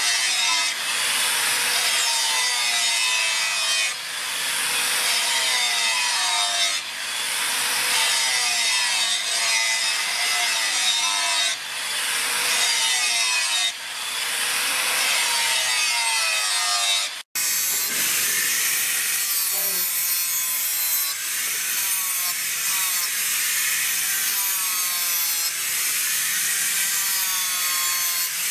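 Handheld angle grinder with an abrasive disc grinding a steel sword blade. Its whine wavers and dips every couple of seconds as the disc is worked along the blade. The sound breaks off for an instant about two-thirds of the way through, then the grinding carries on.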